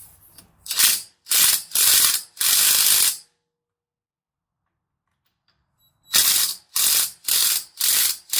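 A 20-volt cordless impact wrench hammering on a car's lug nut in short bursts, four in a row, a pause of a few seconds, then five more. The nut does not break loose.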